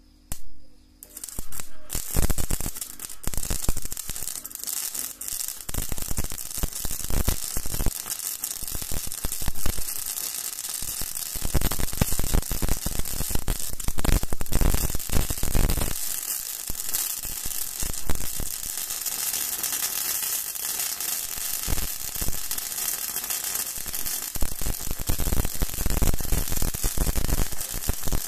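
Gasless flux-core MIG welding arc from an Awelco Mig One whose output has been converted to DC electrode negative, crackling steadily as a bead is laid on a steel strip. The arc strikes briefly about half a second in, then burns continuously from about two seconds on.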